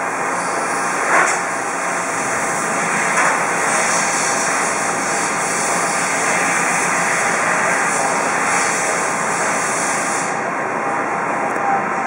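Steady, loud running noise of industrial machinery, with a short knock about a second in and a smaller one about three seconds in.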